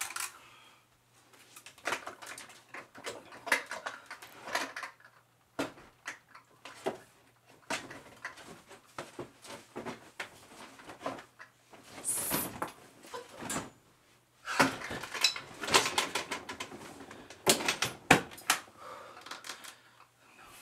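Irregular clattering, knocking and rustling of small objects being handled on a wooden dresser top and in an open dresser drawer as someone searches through them.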